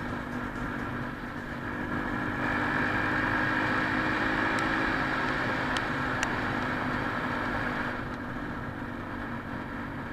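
Quad bike (ATV) engine running under way on a ride. It gets louder about two seconds in and eases off again near the end. There are a few sharp ticks midway.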